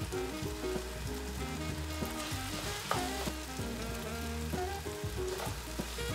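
Noodles and vegetables sizzling in a frying pan as they are stirred with a wooden spoon, with background music playing underneath.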